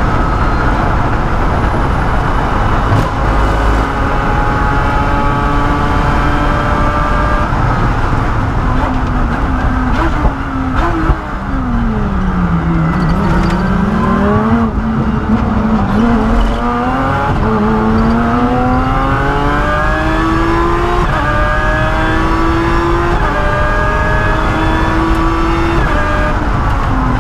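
Lotus Exige Cup PB-R race car engine heard from inside the cockpit, accelerating hard and shifting up several times. About ten seconds in, it comes off the throttle with the pitch falling and a sharp knock. It then pulls back up through a series of upshifts.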